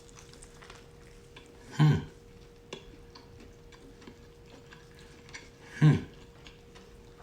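Close-miked eating of a crispy fried chicken sandwich: faint crunching, chewing and mouth clicks. Two short voiced hums of enjoyment break in, about two seconds in and again about six seconds in.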